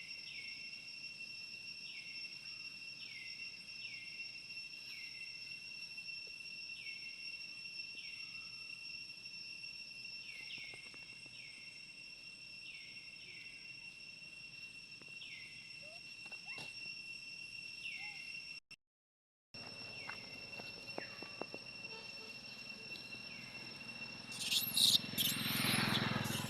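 Steady high-pitched drone of insects, with a short falling chirp about once a second. The sound cuts out for a moment about two-thirds through. Near the end a louder animal call rises for a couple of seconds.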